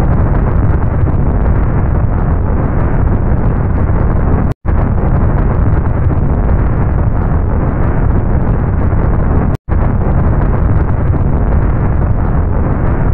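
Pressure cooker on a stove venting steam under pressure: a loud, steady rushing hiss with a deep rumble underneath. It breaks off for an instant twice, about five seconds apart.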